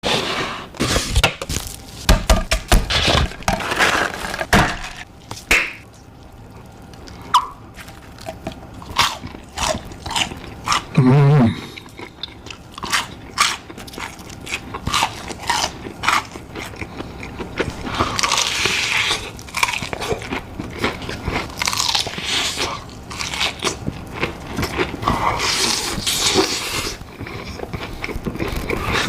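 Close-miked biting and chewing of crispy fried chicken: repeated crunching bites into the coating with chewing between them. A short hummed voice sound comes about eleven seconds in.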